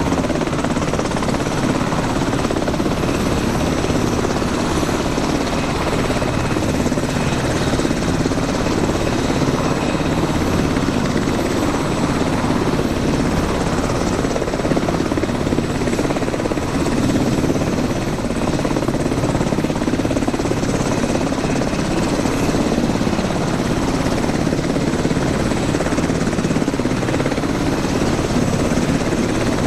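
Boeing AH-64D Apache Longbow attack helicopter hovering low: its twin turboshaft engines and main rotor running loud and steady, with the rotor's fast beat and a faint high whine over it.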